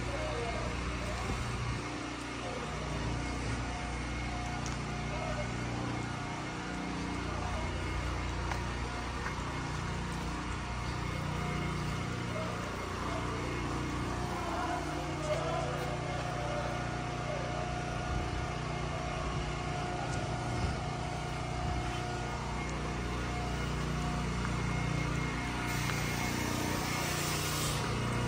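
Urban street ambience dominated by a steady engine hum, with faint voices in the background and a brief hiss near the end.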